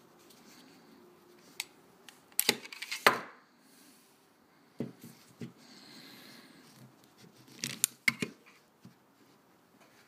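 Black semi-automatic pistol being handled: sharp clicks and clacks as its magazine and slide are worked, with a dense cluster about two and a half seconds in, single clicks around five seconds, and another cluster near eight seconds.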